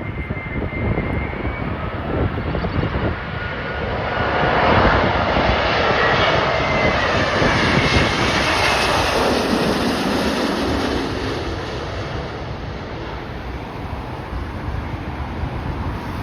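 Jet airliner on final approach passing close by: its engine noise swells to a peak several seconds in, then fades as the whine slides down in pitch. Gusty wind buffets the microphone throughout.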